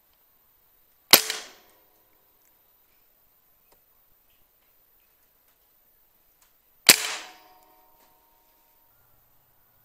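Two shots from a PCP air rifle, about six seconds apart. Each is a sharp crack followed by a short ringing decay.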